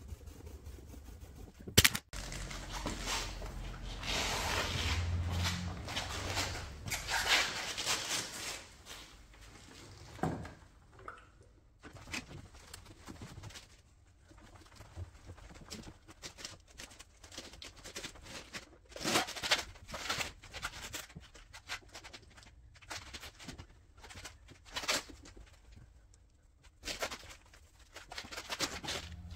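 A microfibre cloth rubbing and wiping over car paint in irregular strokes, with bottle handling and a sharp click about two seconds in.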